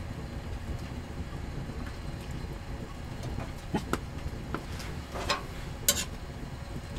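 A wine glass being handled on a table, with a few light knocks and one sharp glassy clink near the end as it is set down. Under it runs a steady low rumble of wind against the tent.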